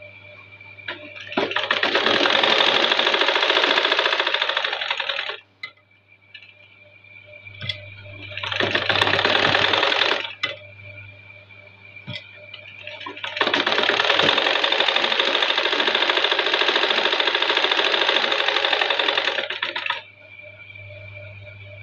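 Black domestic sewing machine stitching a strip of fabric, running in three bursts: about four seconds, then about two, then about six, stopping between them. A faint steady hum carries on through the pauses.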